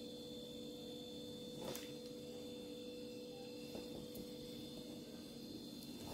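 Quiet steady electrical hum over faint room hiss, with one soft click a little under two seconds in.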